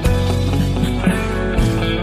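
Instrumental break of a karaoke backing track: guitar and bass over a steady beat, with no singing.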